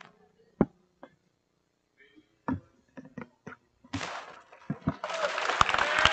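A few scattered knocks and taps, then a crowd starts applauding and cheering about four seconds in, the clapping dense and loud from about five seconds.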